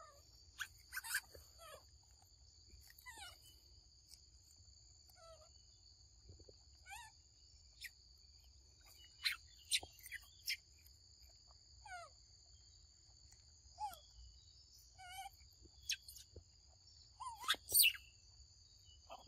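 Forest ambience: a steady high insect drone runs underneath scattered short chirps and quick downward-sliding calls, with the loudest burst of calls near the end.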